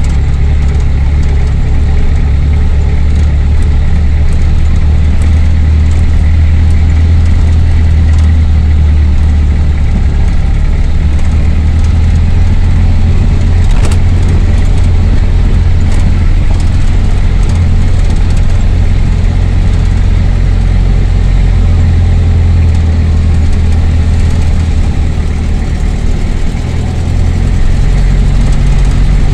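Engine and road noise heard from inside a moving vehicle's cabin: a loud, steady low drone that dips briefly near the end.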